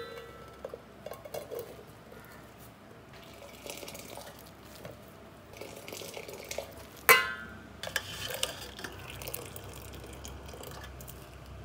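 Cooked parboiled rice being scooped from its cooking water with a steel strainer ladle: water trickling and dripping back into the pot, with soft scrapes and clinks of the metal utensils. One sharper metal clank about seven seconds in.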